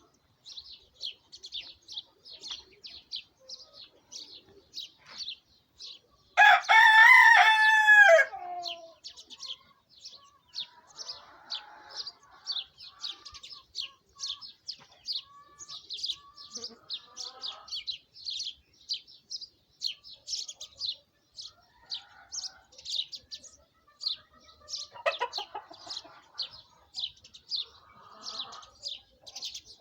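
A rooster crows once, loudly, about six seconds in, the long call dropping in pitch at its end. Rapid high bird chirping runs on throughout, and hens give softer clucking calls here and there.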